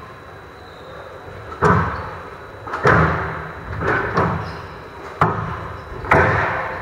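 Squash ball being struck in a rally: sharp racket hits and thuds off the walls, each echoing in the hall. They start about a second and a half in and come about once a second.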